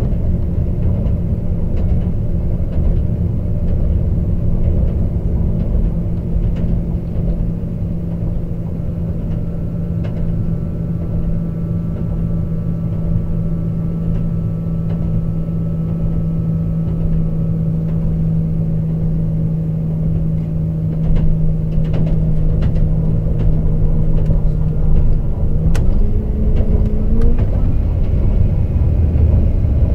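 Class 197 diesel multiple unit heard from inside the carriage while under way. The underfloor diesel engine drones at a steady pitch over the rumble of the wheels on the rails, with a few sharp clicks past the twenty-second mark. About four seconds before the end the engine pitch rises in two steps as it revs up.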